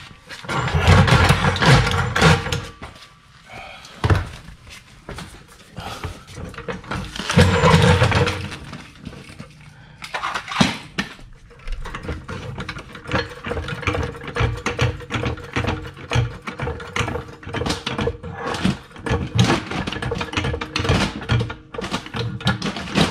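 Steel floor jack being wheeled across a concrete floor and set under the car, rattling and clanking, with the loudest knocks in the first two seconds and again about seven seconds in. A steady faint hum runs through the second half.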